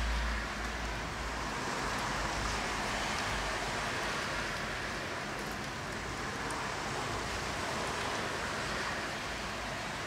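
Steady rain falling, mixed with the hiss of car tyres on the wet road; a low rumble near the start as a car goes by.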